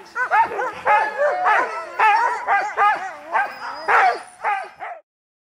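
A pack of sled huskies barking and yelping all at once, many overlapping calls rising and falling in pitch. It is the loud, excited din of dogs eager to run. The sound cuts off suddenly near the end.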